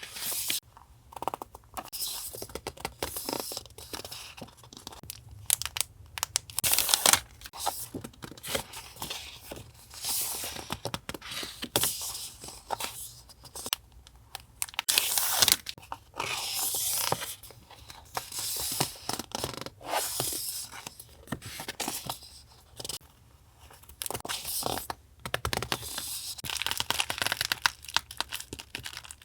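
Paper being handled close to the microphone for collage journaling: irregular tearing and rustling strokes, some louder and sharper than others.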